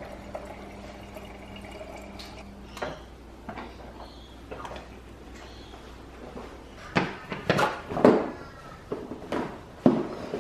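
Refrigerator door water dispenser running, a steady hum with water filling a plastic drink bottle, cutting off about three seconds in. Later comes a run of knocks and rustles as a school backpack is handled on a tiled floor.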